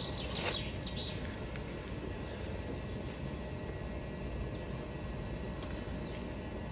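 Steady low outdoor rumble, with a small bird singing a short run of high, stepped chirps in the middle.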